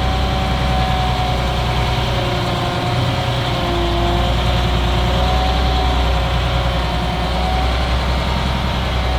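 Concrete mixer truck's diesel engine running at low speed: a steady low rumble with a higher hum that dips slightly in pitch a few seconds in.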